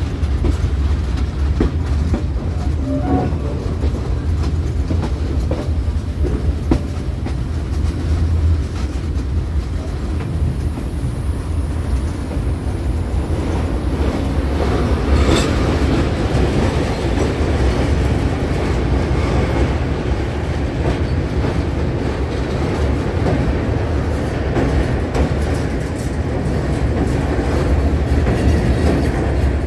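Passenger train running on the track: a steady rumble of wheels on rails with clickety-clack, and a single sharp knock about halfway through.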